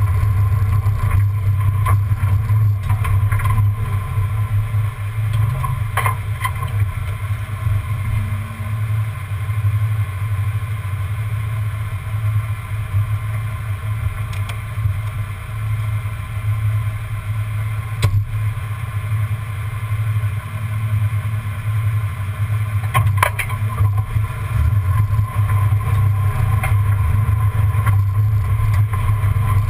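A 1994 Ford Bronco driving slowly off-road, heard from under the truck: a steady low drone of engine and drivetrain, with a few sharp knocks scattered through, from stones or the front suspension.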